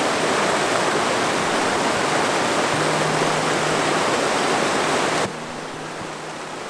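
Snowmelt-swollen mountain creek rushing over rocks in whitewater, a loud steady rush. The rush drops suddenly to a lower level about five seconds in.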